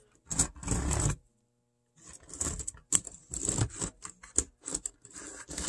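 Walthers model diesel locomotive being handled and pushed along sectional model track, its wheels and plastic body giving irregular clicks and rattles on the rails and turnout, with a short silent gap about a second in.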